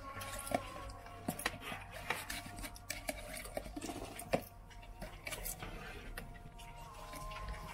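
Metal forks and a serving spoon clinking and scraping against a metal serving tray and cups while meat and potatoes are served out, in a run of short, irregular clinks.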